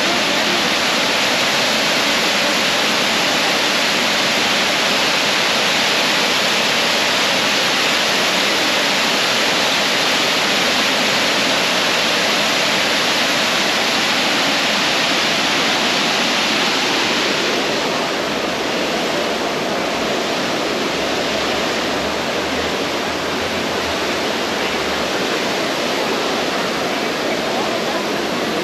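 Plaza water fountain splashing: a steady, loud rushing hiss that drops somewhat about two-thirds of the way through.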